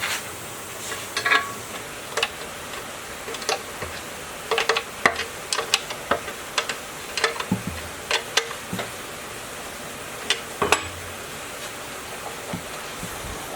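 Irregular sharp clicks and taps over a steady hiss, bunched in the middle, like small hard objects being handled.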